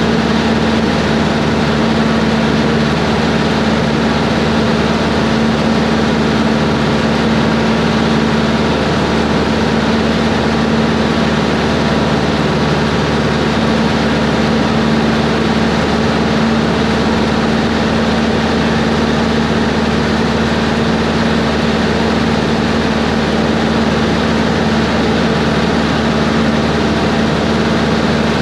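Cessna 140's four-cylinder engine and propeller running steadily in flight, heard from inside the cabin: a loud, even drone with a strong constant hum that does not change.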